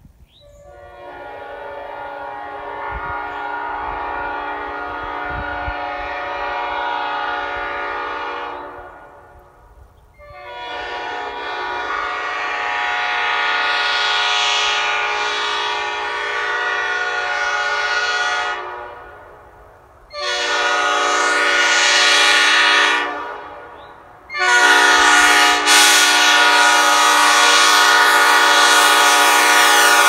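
3D-printed replica of a Nathan Airchime P5 five-chime train horn, blown on air at 120 psi: four long blasts of a steady multi-note chord. The first swells in slowly and lasts about eight seconds, the next two are shorter with brief gaps between, and the last and loudest starts about three-quarters of the way through.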